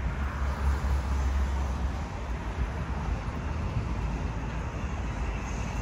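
Outdoor ambience: a steady low rumble with an even hiss over it, without speech.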